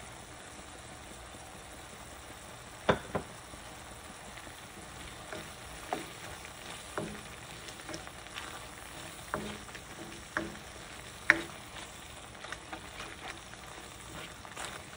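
Onion-tomato masala with freshly added ground spices sizzling steadily as it fries in a metal kadai, while a spatula scrapes and knocks against the pan every second or two, the loudest knock about eleven seconds in.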